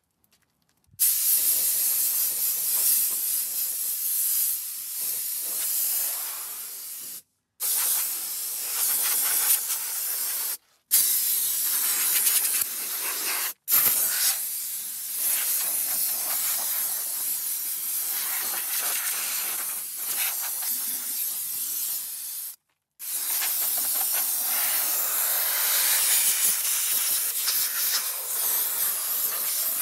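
Compressed-air blow gun hissing loudly as its jet blasts dust and debris off an old air-cooled VW Type 4 engine. The hiss drops out abruptly several times.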